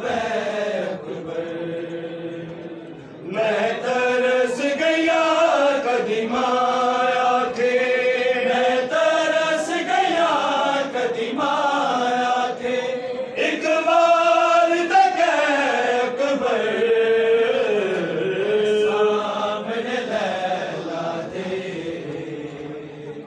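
Unaccompanied male chanting of a noha, a Shia mourning lament, sung in long held notes that slide up and down; it grows louder about three seconds in.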